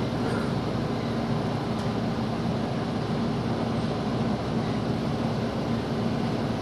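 Steady running noise heard inside a 113 series electric train: an even rumble of wheels and motors with a steady low hum under it.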